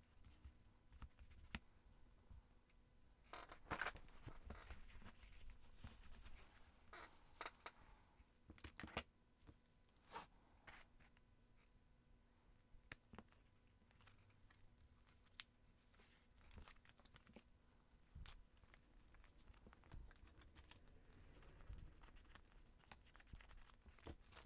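Faint handling of paper: cut-out paper pieces rustling and crinkling as they are pressed down onto a journal page, with scattered light taps and clicks. The loudest rustle comes about four seconds in.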